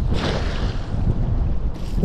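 Wind buffeting the microphone in a low, uneven rumble, with the splash of a cast net landing on the water just after the start.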